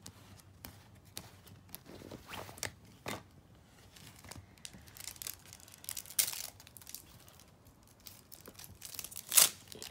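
Foil trading-card packet crinkling in the hands and being torn open: scattered rustles, with a louder rip about six seconds in and the loudest, sharpest rip just before the end.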